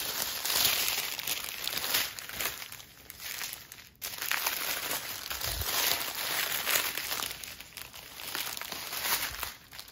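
Clear plastic packaging and small zip bags of diamond-painting drills crinkling as they are handled and spread out, in uneven stretches with a brief break about four seconds in.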